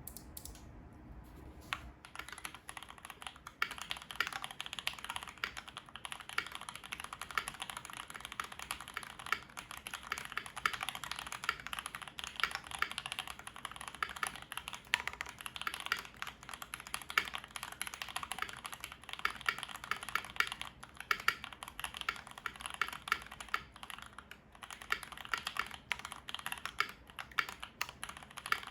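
Fast, continuous typing on a Keychron V1 mechanical keyboard with lubed and filmed NK Dry Black linear switches, a steel plate and GMK keycaps. A few scattered keystrokes, then a steady stream of keystrokes from about two seconds in.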